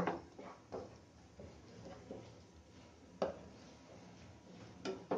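A stirring utensil moving chopped onion, green chilli and coriander around a nonstick frying pan, with a few soft knocks and scrapes against the pan, the clearest about three seconds in and two more near the end.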